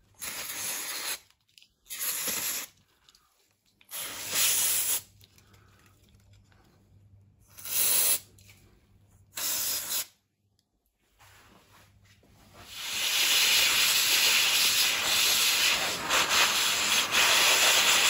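Aerosol brake cleaner sprayed in five short hissing bursts into a motorcycle's handlebar starter switch unit to clean its contacts. About two-thirds of the way through, a motorbike dryer's air hose starts blowing a loud, steady hiss of air through the switch.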